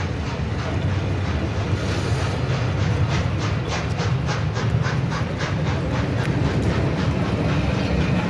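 Steam-hauled passenger train behind the locomotive Tornado running past: a steady heavy rumble with a quick, even beat of about three to four a second.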